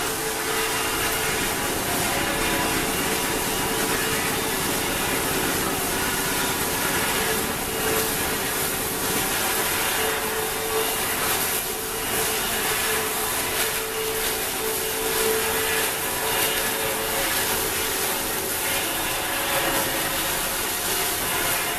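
Woodworking machine running steadily: a constant motor hum under a dense rasping noise, typical of wood being sawn or machined.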